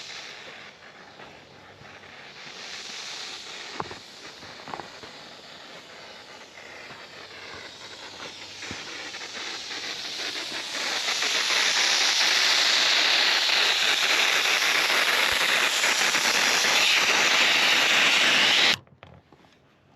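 Air hissing out of truck tires as they are aired down from about 20 psi toward 15 psi. The hiss swells to a loud, steady rush and cuts off suddenly near the end as the release is closed at the target pressure.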